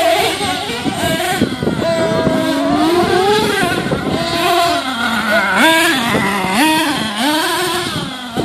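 Small nitro engines of radio-controlled monster trucks revving up and down over and over, the pitch climbing sharply in several quick bursts as the trucks drive across the dirt.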